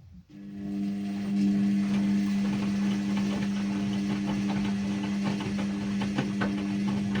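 Ariston washing machine starting up from quiet: a steady electric hum comes in a moment after the start, builds over the first second and then holds, with water sloshing and small irregular knocks over it.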